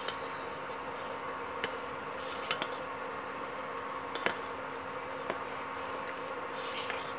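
A steel spoon stirring milk in a stainless-steel pot, with a few sharp clinks as the spoon strikes the pot's side, the loudest about four seconds in, over a steady low hum.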